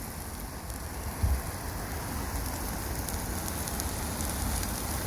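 Burgers frying in a pan: a steady sizzle with fine crackling.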